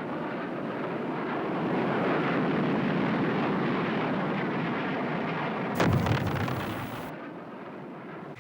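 A loud rumbling roar of war footage, swelling about two seconds in. A sudden sharper blast comes about six seconds in, and then it dies down.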